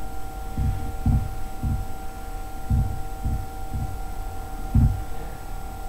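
About seven dull, low thumps at irregular intervals, like bumps or knocks picked up by a desk microphone. Under them runs a steady electrical hum with a few thin, steady whine tones from the recording chain.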